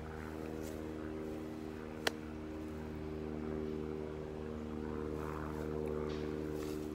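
A machine running steadily with a low, even hum, and a single sharp click about two seconds in.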